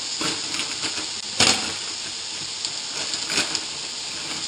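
Meat strips frying in olive oil in a pan, a steady sizzle with a few sharp crackles: the loudest about a second and a half in, another about a second before the end.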